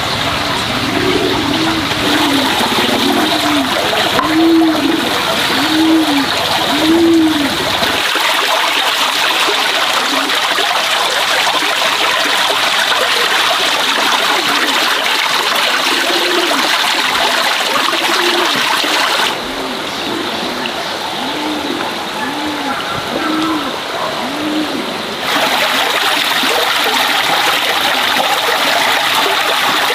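Water running and splashing steadily from a bamboo pipe into a basin. A regular series of short low notes, about one a second, sounds through the first few seconds and again later.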